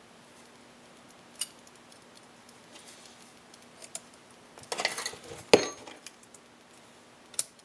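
Thin steel rails of an oil scraper ring clicking and clinking against an MGB piston as they are worked into the ring groove by hand: scattered light metallic clicks, a cluster about five seconds in and the sharpest click just after.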